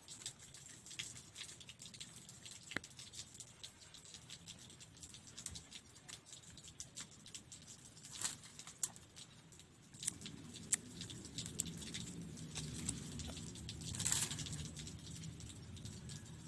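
Hand-weaving of plant-fence strips: scattered small clicks, taps and rustles as the strips are handled and threaded, with a louder rustle about two-thirds of the way through. From about ten seconds in, a low steady rumble joins underneath.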